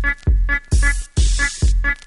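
Electronic dance music: a steady four-on-the-floor kick drum about twice a second under short synth stabs, with a hissing cymbal-like swell through the middle.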